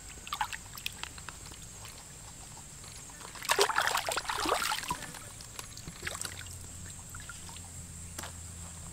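Shallow muddy water splashing as a crab is rinsed by hand, a few small splashes first, then a burst of heavier swishing and sloshing near the middle.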